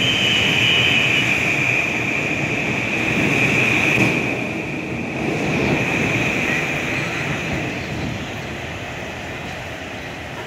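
Metro-North electric commuter train running past the station platform: a dense steady rumble with a high steady tone over it. The sound fades over the last few seconds as the train pulls away.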